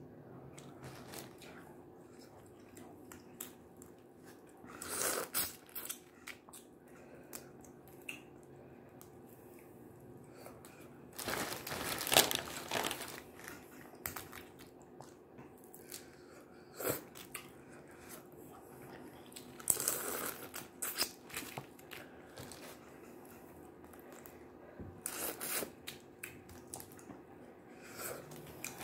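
Boiled crawfish being cracked and peeled by hand, with chewing: shells crunching and tearing in short bursts every few seconds over a faint steady hum.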